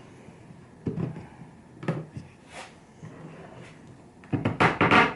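A few separate wooden knocks about a second apart, then a quick, louder run of knocks and clatter near the end, like pieces of wood being handled and set down on a bench.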